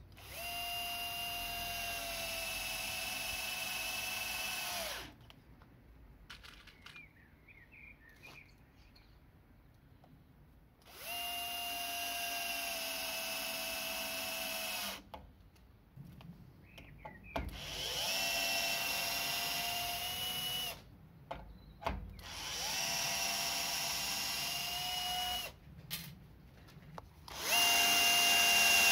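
Old 12-volt cordless drill, converted to run from an 18-volt lithium-ion battery through a buck converter, driving screws into a wooden beam and then drilling into the wood near the end. It gives five runs of a steady motor whine, each a few seconds long with short pauses between, the pitch dipping slightly partway through some runs.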